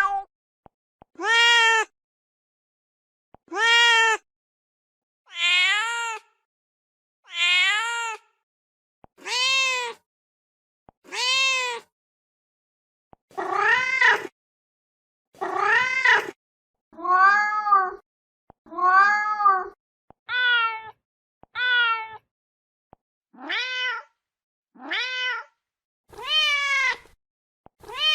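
A mother cat calling for her kittens: a series of about fifteen short meows, one every second or two, each rising and then falling in pitch.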